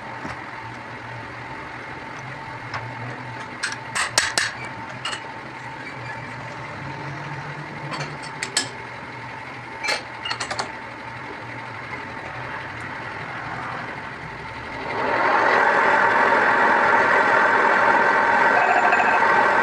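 Sharp metallic clicks and knocks over a low steady hum, then about 15 seconds in a loud steady metalworking machine starts up.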